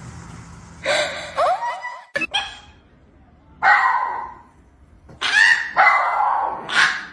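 A dog barking and yelping in several short loud bursts, with pitch bending up and down within the calls.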